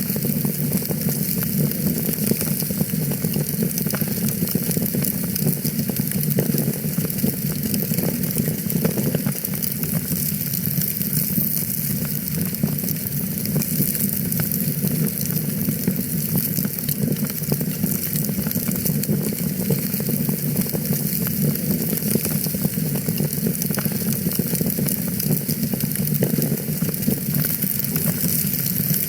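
Wood fire burning in a fireplace, crackling steadily with a dense stream of small pops and a low rumble underneath.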